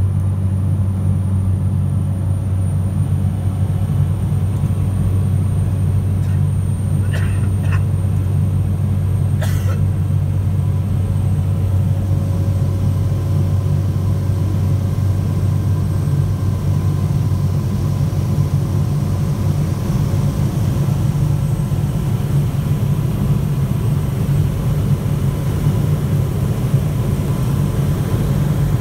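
Aircraft engine drone inside the cabin, a steady low hum at an even level throughout. A few brief higher clicks come about seven and nine and a half seconds in.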